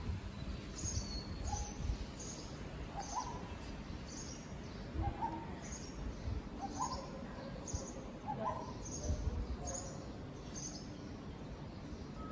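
Asian koel calling: short rising notes repeated every second or two, with thin high chirps repeating about once a second.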